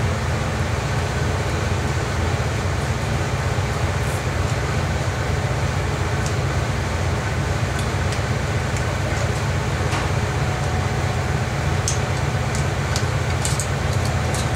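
Steady low mechanical hum, with a few faint light clicks as the plastic chain guides are worked off their pins, several close together near the end.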